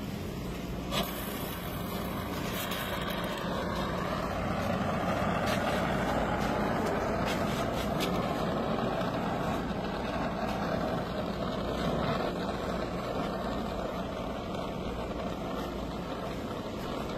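Brazing torch flame hissing steadily, over a low steady hum, with a single click about a second in.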